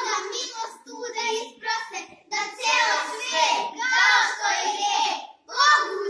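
A group of children singing a Christmas song together in short phrases with brief breaks between them.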